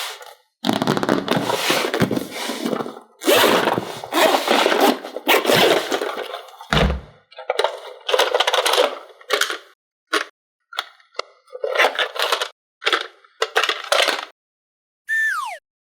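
Plastic toy packaging being handled: irregular bouts of crinkling, crackling and scraping with short pauses between them. A short falling whistle-like tone sounds shortly before the end.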